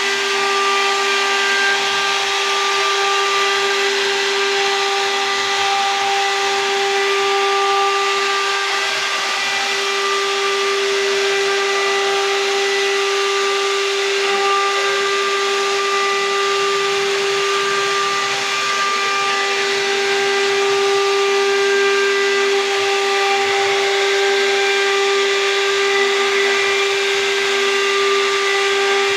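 1325 CNC wood router running, its spindle giving a steady high whine as the V-bit engraves grooves into a wooden door panel, over a hiss of cutting. Fainter higher tones come and go as the head moves.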